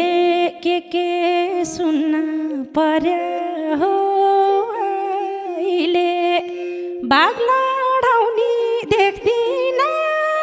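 Live Nepali dohori folk music: a held low drone note under a sliding, wavering melody line, with a few light strikes.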